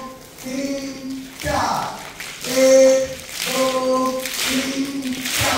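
A large crowd of voices chanting together in unison: a string of held notes on much the same pitch, each broken by a short gap.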